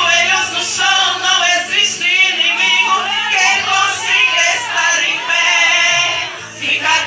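Group of women singing a gospel hymn together, the lead voice amplified through a handheld microphone.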